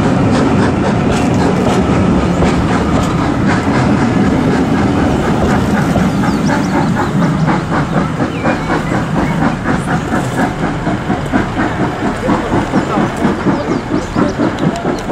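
Jacobite steam train's passenger coaches rolling past, their wheels rumbling on the track. About halfway through, this turns into a quick, regular clickety-clack over the rail joints as the last coach draws away.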